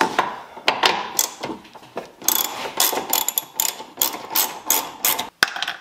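Hand ratchet clicking in quick, uneven runs as bolts are backed out of a dashboard.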